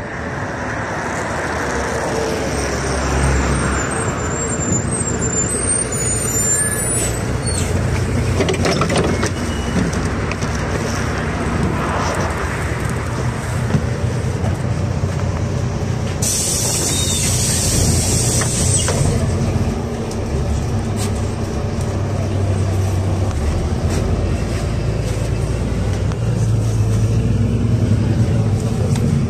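NEFAZ 5299 city bus with a Cummins ISBe six-cylinder diesel pulling in to a stop, with a brief high brake squeal, then a hiss of compressed air lasting about three seconds near the middle. After that the engine hums steadily as the bus pulls away, heard from inside the cabin.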